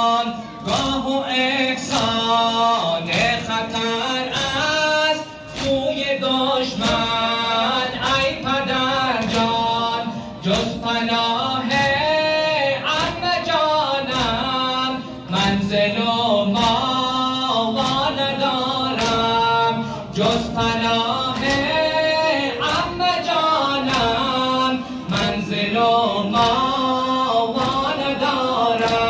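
A male reciter sings a Persian noha (Muharram mourning lament) through a microphone and loudspeakers. Under the voice, mourners beat their chests in a steady rhythm, a little more than one strike a second.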